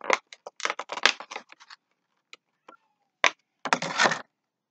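Funko Pop box packaging being handled as the vinyl figure is pulled out: a run of crackling for the first two seconds, a few separate clicks, one sharp click, then a short burst of rustling near the end.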